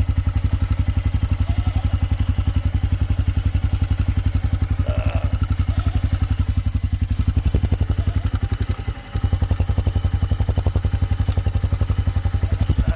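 Four-wheeler (ATV) engine idling with a steady, even putter, heard close to its exhaust. The sound dips briefly about nine seconds in.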